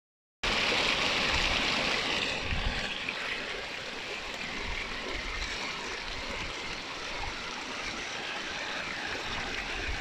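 Small waterfall cascading over mossy rocks: a steady rush of water that drops a little in level after about two seconds.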